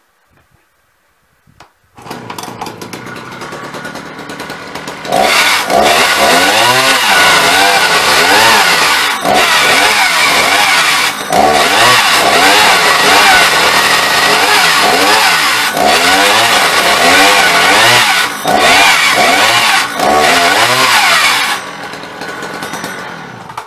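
Two-stroke chainsaw catching about two seconds in and idling, then opened up to full throttle at about five seconds to cut through a log. Its pitch sags and recovers under load, with a few brief dips. It drops back to idle near the end and cuts off.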